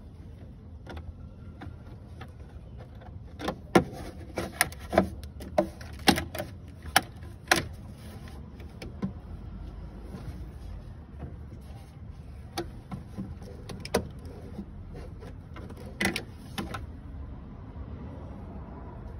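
Sharp clicks and knocks from a screwdriver and plastic air-intake parts being worked loose in a car's engine bay. They come in a quick cluster a few seconds in and a few more scattered later, over a low steady background rumble.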